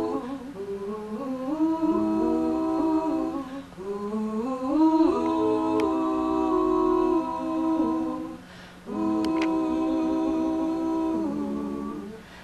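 Three women singing wordless 'ooh' harmony a cappella: held chords that slide from one to the next, with two short breaks for breath.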